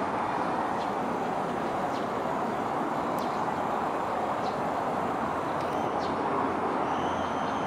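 Steady outdoor wash of distant city traffic noise, with a few faint short high ticks.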